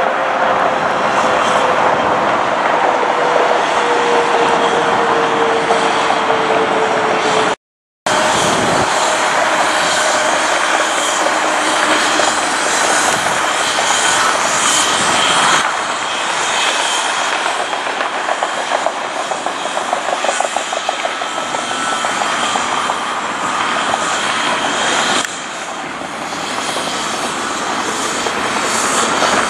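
Jet airliners running loud and close, a dense steady rush with a whine that falls slowly in pitch during the first part. The sound cuts off abruptly for a moment about eight seconds in and changes suddenly twice more later on.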